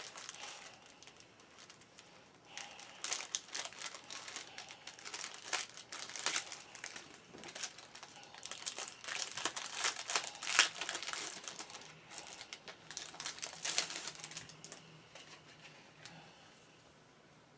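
Small plastic baggie crinkling and rustling as it is handled and opened to get a pen out, on and off for about twelve seconds, with a sharp click right at the start.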